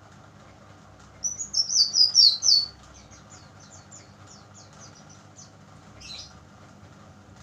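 Young brown-chested jungle flycatcher, still learning its song, singing. About a second in comes a loud, rapid run of high chirping notes, which trails into a softer string of quick notes, and a single short call follows near the end.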